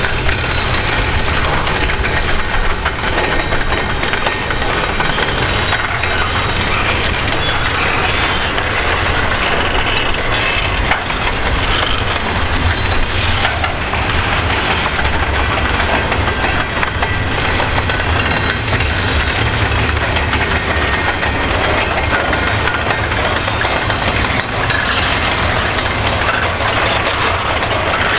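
Double-stack container well cars of a freight train rolling past: a steady rumble of steel wheels on the rails with continual clicking and clattering.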